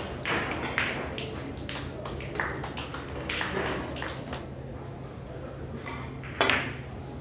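Sharp clicks of carom billiard balls and cue, the loudest about six and a half seconds in as the cue tip strikes the cue ball, over a steady low hum of the hall.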